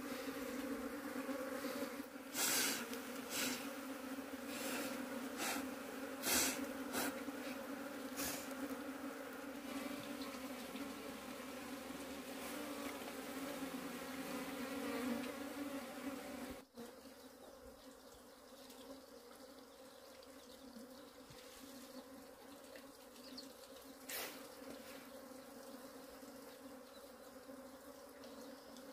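Honeybees buzzing in a steady, dense hum around the hive, with several sharp knocks in the first several seconds. A little past halfway the buzzing drops suddenly to a quieter level and carries on.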